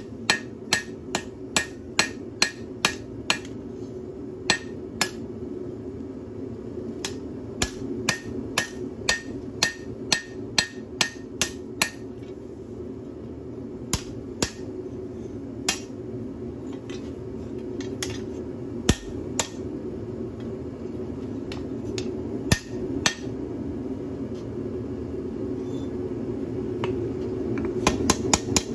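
Hand hammer striking a leaf-spring knife blade on a steel anvil: sharp ringing blows about two to three a second at first, then slower and scattered, with a quick flurry near the end. A steady low hum runs underneath.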